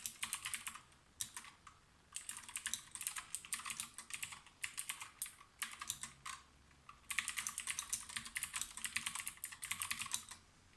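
Typing on a Lofree DOT Bluetooth mechanical keyboard: quick runs of clicky keystrokes, broken by two short pauses, about a second in and again around six seconds in.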